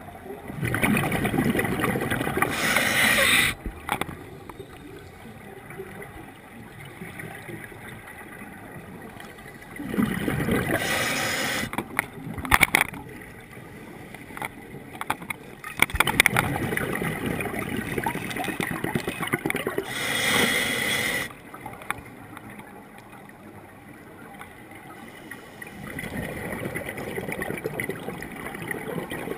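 Scuba diver breathing through a regulator underwater: four long bursts of exhaled bubbles gurgling and hissing, each lasting a few seconds, with quieter stretches between them while the diver inhales.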